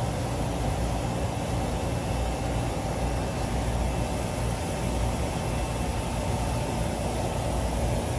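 Steady mechanical hum with a low rumble and faint steady tones, the running noise of rooftop HVAC equipment.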